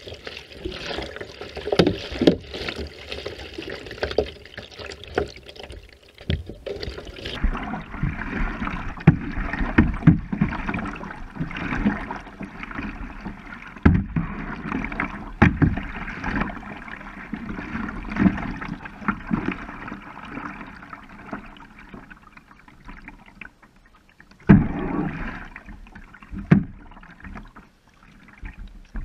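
Kayak paddling close up: paddle blades dipping and splashing, water sloshing, and occasional short knocks, coming irregularly every second or two.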